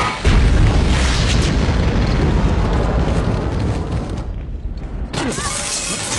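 Film soundtrack explosion: a deep boom that rumbles on for about four seconds, breaks off briefly, then a second loud burst with sliding tones in it near the end.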